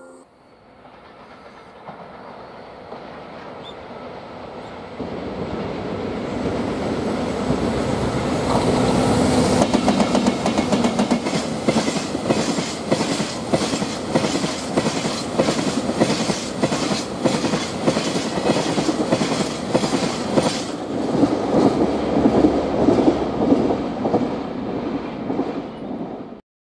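Freight train headed by two coupled EF64 electric locomotives passing close by, then a long string of oil tank wagons clattering over the rail joints in a steady, rapid run of wheel clicks. The sound builds over the first several seconds and cuts off suddenly near the end.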